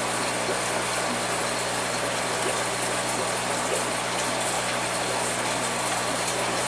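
Aquarium running steadily: a constant rush of bubbling water with a low hum from the tank's pump.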